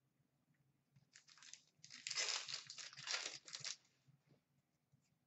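Foil wrapper of a 2013-14 Upper Deck Series 2 hockey card pack being torn open and crinkled. There is a short rustle about a second in, then a louder spell of crinkling that lasts about two seconds.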